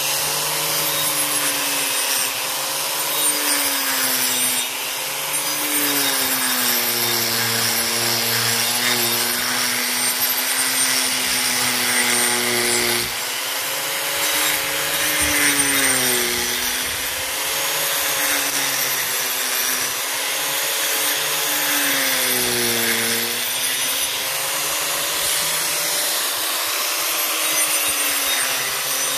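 Makita angle grinder carving dead Chinese elm wood, the disc grinding continuously; its motor whine sags and recovers several times as the disc bites into the wood.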